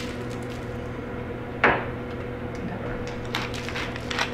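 A single sharp knock about a second and a half in, then, from about three seconds in, a run of short rasping, crunching strokes from a wooden pepper mill being twisted to grind pepper. A low steady hum sits under it throughout.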